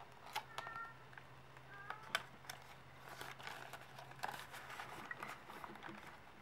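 Paper banknotes rustling and clicking as cash is counted by hand. Two brief faint squeaks come in the first two seconds, and a faint low hum stops near the end.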